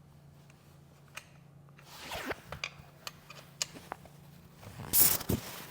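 Scattered clicks and clinks of hand tools working on a motorcycle's shift linkage, with a short, loud rasp about five seconds in.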